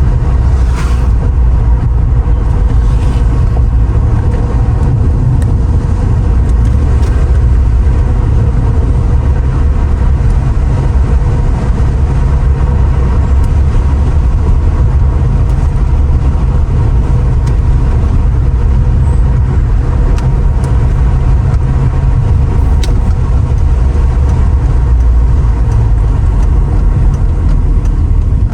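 Mercedes R129 SL500's V8 and road noise while the car is driven at a steady speed, a loud, even low rumble with no revving.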